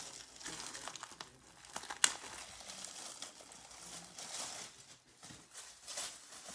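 Clear plastic wrapping crinkling and rustling as a wallet is unwrapped from it by hand, with one sharp snap about two seconds in.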